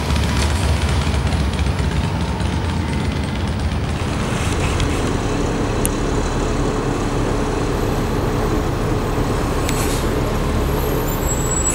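Transit bus engines running in street traffic as a low-floor city bus approaches and passes close by, a steady whine joining the engine rumble as it nears. A brief high squeal sounds near the end.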